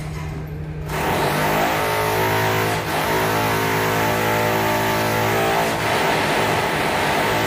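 A motor starts about a second in and runs at a steady, even hum with a broad hiss over it.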